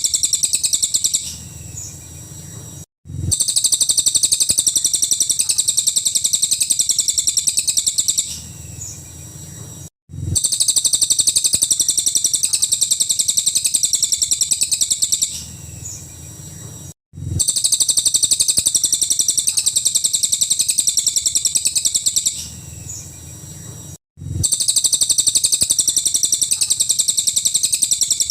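Cililin songbird singing a rapid, high-pitched chattering trill in bursts of about five seconds, with quieter pauses between. The same phrase repeats about every seven seconds, with a brief cut of silence where the recording loops.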